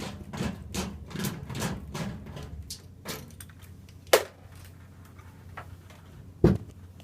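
Ballast being taken out of a metal fluorescent light fixture: a quick run of small clicks and rattles, then two sharp metallic knocks a couple of seconds apart.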